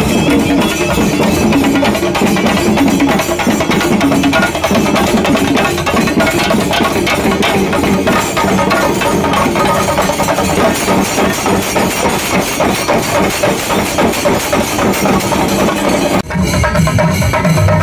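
A singari melam ensemble of chenda drums beaten with sticks, playing a fast, driving rhythm. The sound cuts out for a moment near the end and then resumes.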